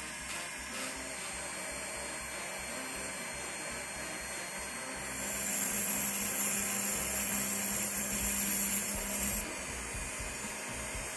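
Small handheld rotary tool running steadily on a cast silver piece, first with a grinding stone and then with a thin cut-off disc at the sprue. From about five seconds in to about nine and a half it gets louder, with a high hiss as the disc cuts the metal.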